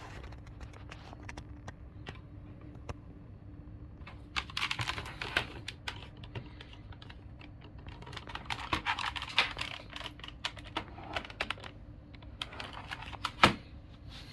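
Typing on a Logitech G710+ mechanical keyboard with Cherry MX Brown switches: scattered single key presses and three bursts of fast keystrokes, with one louder clack near the end.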